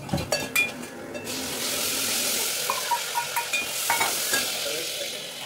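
Food sizzling as it fries in a metal pan on a gas stove, while a metal spatula stirs it and clinks and scrapes against the pan. The sizzling rises about a second in.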